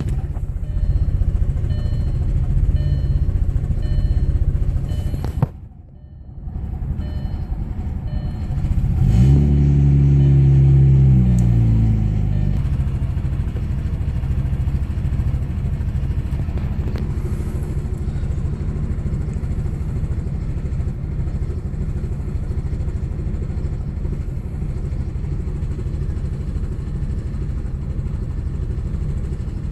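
The Audi B5 S4's 2.7-litre twin-turbo V6 running on a cold start, the condition under which it misfires. About five seconds in there is a sharp click and a brief drop in sound. About nine seconds in the revs flare up, then sag back over a few seconds to a steady idle.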